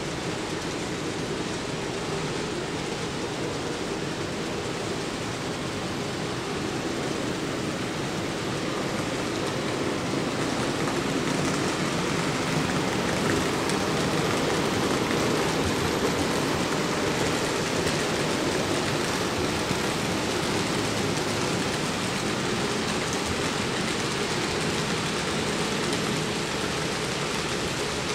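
Model train running along layout track, a steady rolling rush of wheels on rail with motor hum from a pair of Union Pacific-painted diesel locomotives pulling covered hoppers. It grows louder partway through as the locomotives pass close by, then eases a little as the cars follow.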